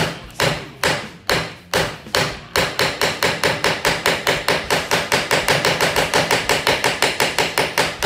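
Sharp metallic knocks with a short ring as a hand strikes a 2UUL precision screwdriver held upright against a metal plate: about two blows a second, quickening to about five a second after two and a half seconds.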